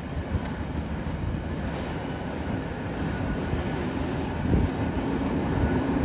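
Freight train's covered hopper cars rolling away on the rails: a steady rumble of steel wheels on track, with one louder thump about four and a half seconds in.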